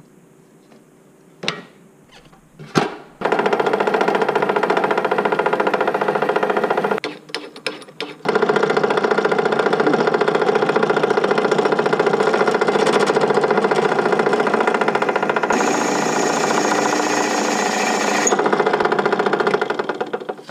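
Benchtop drill press motor starting after a couple of clicks, then running steadily while it drills out the steel rivet holding a shovel's handle. It drops out briefly a few seconds in and then runs on, with a higher whine for about three seconds near the end before it stops.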